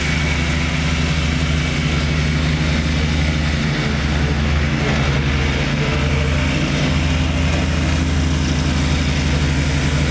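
Small rear-engine riding lawn mower with its engine running at a steady speed as it drives across the lawn.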